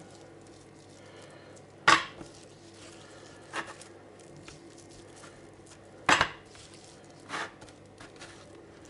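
A piece of pork fat (salo) knocking against a plastic cutting board as it is turned and pressed while salt and spices are rubbed in. There are four sharp knocks: the loudest about two seconds in and about six seconds in, and lighter ones between them and near the end.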